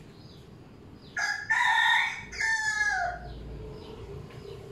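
A rooster crowing once, a call of about two seconds that drops in pitch at the end.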